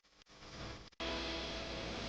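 Log splitter running steadily, a continuous machine hum with a strong low rumble that cuts in abruptly about a second in, after a brief silence and a short fainter stretch.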